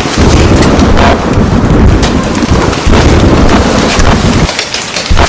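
Heavy rain with thunder rumbling low and rolling; the rumble eases off near the end.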